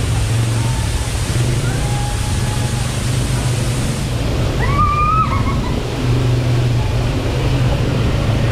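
ATV engine running under a steady loud rushing, sloshing noise, with a brief voice cry about five seconds in.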